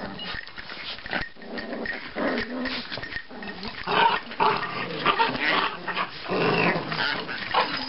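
Several Chihuahuas play-fighting, growling at each other in a continual jumble, loudest in the middle.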